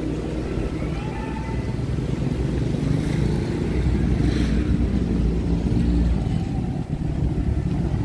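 Road traffic: a motor vehicle's engine running close by, growing louder over the first few seconds.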